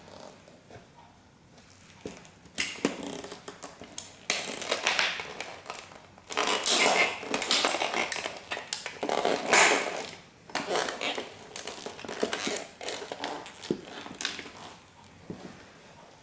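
A Bugatti model toy car creaking and scraping under the weight of heavy platform-soled Dr. Martens Jadon boots standing and rocking on its roof. The sound comes in a series of irregular bursts starting a few seconds in, loudest around the middle, and the model does not break.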